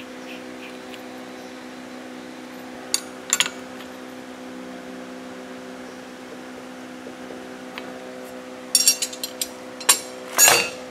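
Sharp metallic clicks and clinks of hand tools on a turbocharger's compressor wheel as its left-hand-thread nut is tightened on the shaft: two about three seconds in, then a quick cluster near the end. A steady hum runs underneath.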